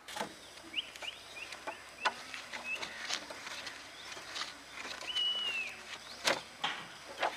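Sharp metallic clicks and knocks of a steel screw bar clamp being fitted and tightened onto a saw blade against a wooden sawhorse, the loudest knock about six seconds in. Short bird chirps run behind it, with one longer high whistle about five seconds in.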